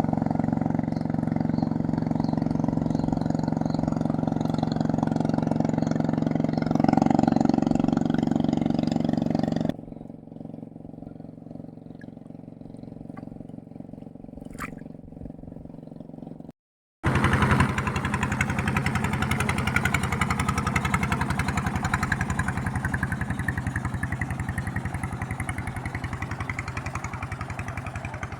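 Small engine running steadily, rising briefly about seven seconds in. Partway through it gives way to a quieter stretch with a single click, then after a brief cut the engine is loud again and slowly fades.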